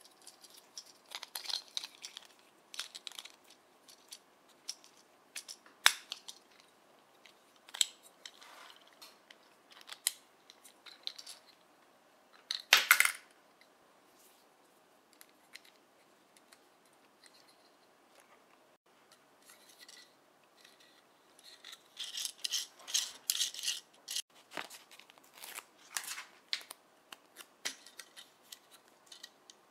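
Hard plastic parts of a small snap-together toy train being handled and fitted together: scattered sharp clicks and light scrapes, with a louder clatter about halfway through, a quiet spell after it, then a busy run of clicking near the end.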